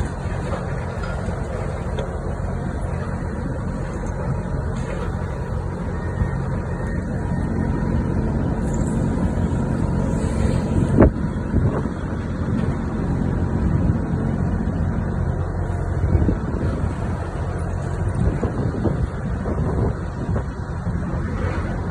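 Heavy diesel demolition machine engine running steadily, with a sharp knock about eleven seconds in.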